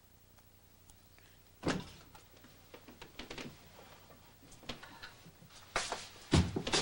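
A door being handled: a sharp knock about a second and a half in, a few light clicks and bumps, then two or three heavier thuds near the end.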